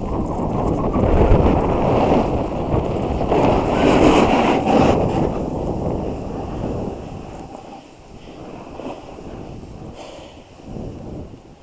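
Wind rushing over an action camera's microphone while riding down a groomed snow slope, mixed with the hiss of sliding on packed snow. It is loud for the first half and dies down after about seven seconds as the speed drops.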